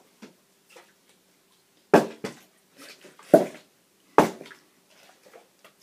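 Plastic water bottle, partly filled, flipped and landing on a carpeted floor: three sharp thuds about a second apart, starting about two seconds in.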